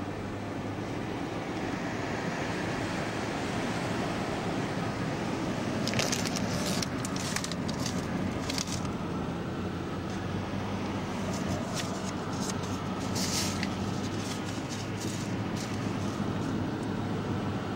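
Steady engine and road noise heard inside a moving van's cabin. Through the middle there is a run of short sharp clicks and rattles.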